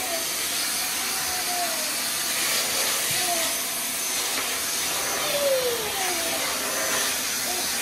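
Vacuum cleaner running steadily, with a few short tones over it that slide down in pitch.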